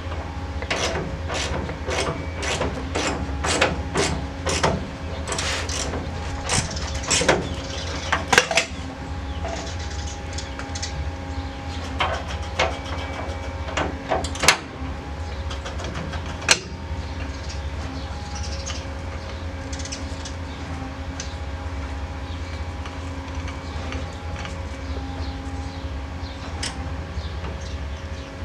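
A run of sharp clicks and knocks, several a second for about the first nine seconds, then only a few scattered ones, over a steady low hum.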